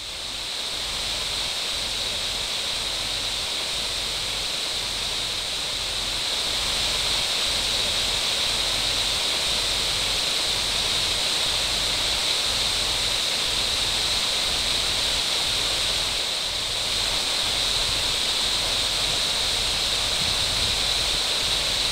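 Water pouring over a check dam into the pool below: a steady rushing that fades in over the first second or so.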